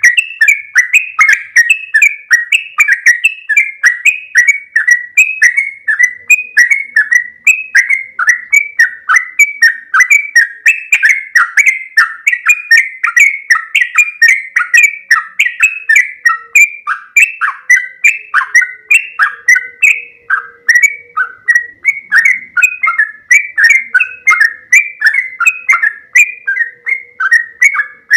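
Sooty-headed bulbul (trucuk) singing a long rolling song: short chirping notes repeated several times a second without a break.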